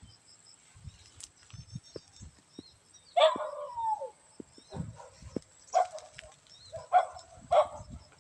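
A dog barking: one longer bark that falls in pitch about three seconds in, then three short barks near the end. Insects chirp faintly and steadily underneath.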